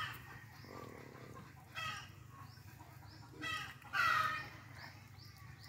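Domestic fowl calling in a few short calls: one about two seconds in and two more close together around three and a half to four seconds in.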